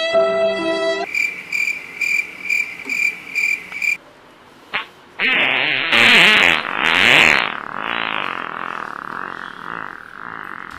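Cricket-chirping sound effect, about two chirps a second for some three seconds, the joke cue for an awkward silence. Then a loud rushing whoosh that swells twice and slowly fades.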